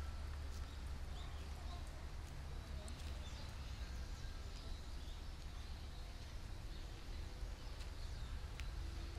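Walking ambience: faint bird chirps and scattered light footstep ticks on a dirt path over a steady low rumble.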